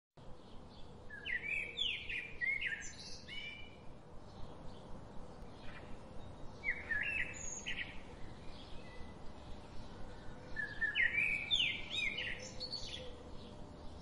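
Songbird singing in three bursts of quick, twittering high notes, separated by pauses of a few seconds.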